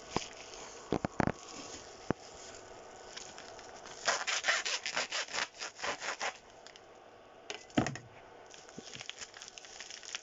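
Parcel packaging being cut and torn open by hand: a few sharp clicks, then about two seconds of quick scraping, tearing strokes, and a single knock.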